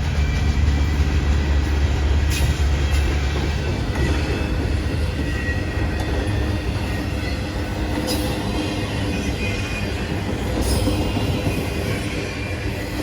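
Freight cars of a CSX intermodal train rolling past at speed: steady wheel-on-rail rumble and clatter, with a few sharp clicks from the rail joints and a faint thin wheel squeal at times.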